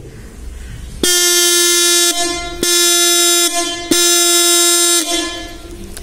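Electric disc-type motorcycle horn, powered from a battery, sounding three blasts of about a second each with a steady buzzy tone. A plastic cap tightened onto its front alters its tone.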